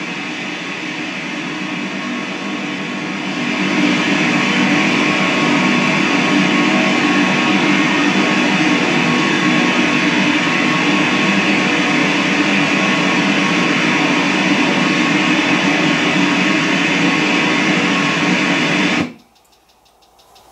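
ITC portal session output: a loud, dense, steady wash of noise with music-like fragments running through it. It grows louder about three and a half seconds in and cuts off abruptly near the end.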